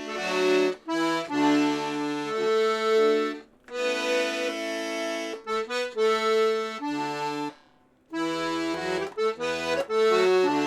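Paolo Soprani two-row C#/D button accordion with LMM reeds, played in short phrases of treble chords with bass notes and chords from the left-hand side. The playing stops briefly twice.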